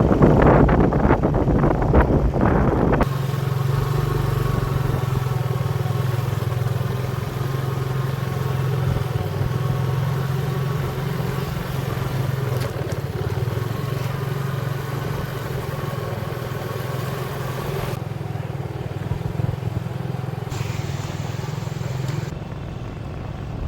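Motorbike engine running steadily under way, a constant low drone with wind on the microphone. It is louder and rougher for the first three seconds, then settles.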